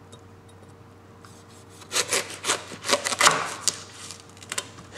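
Large chef's knife sawing down through a whole watermelon, the rind and flesh giving a quick run of sharp crackling crunches starting about two seconds in, followed by a few lighter clicks near the end.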